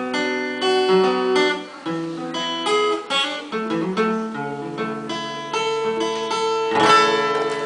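Background music: an acoustic guitar picking a melody of single notes and chords, the instrumental lead-in to a song, with no singing.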